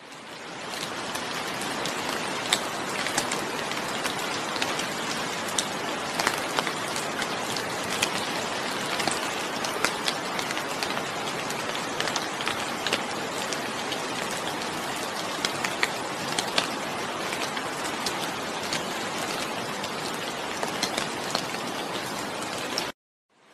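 Steady rain, a dense even hiss with many distinct, sharp drop hits scattered through it. It fades in at the start and cuts off abruptly shortly before the end.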